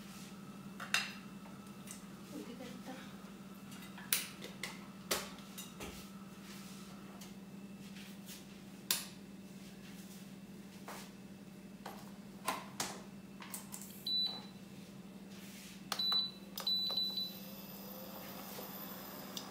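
Gilafi kababs cooking in a pan on low heat: scattered sharp pops and clicks over a steady low hum. A few short high tones come about three-quarters of the way in.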